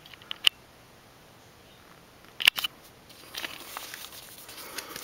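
Handling of an LP album jacket in a plastic outer sleeve: a few light clicks, a louder click about two and a half seconds in, then continuous crinkly rustling of the plastic with small clicks.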